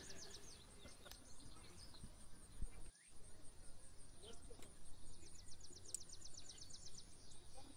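A small bird singing a fast trill of short high notes about five seconds in, lasting some two seconds, over a steady high buzz.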